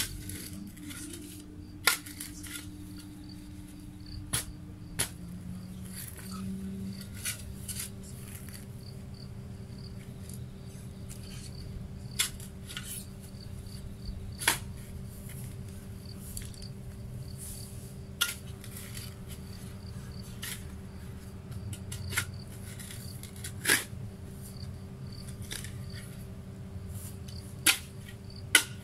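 Steel shovel blade driven into stony garden soil, giving a sharp clink or scrape of metal on stone every few seconds. Under it runs a steady low hum, with faint insect chirping.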